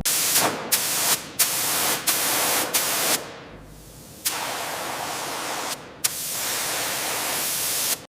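Loud bursts of hissing noise that start and stop abruptly several times, dipping away briefly about halfway through before returning.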